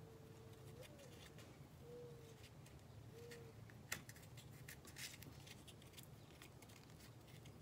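Near silence: faint rustles and small clicks of hands threading cotton macramé cord through a silk cocoon bead, with one sharper click about four seconds in.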